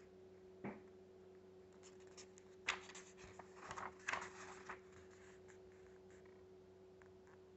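Paper pages of a printed instruction booklet rustling as they are handled and turned, in a cluster of short rustles from about 2 to 5 seconds in, after a single tap a little under a second in. A faint steady hum sits underneath.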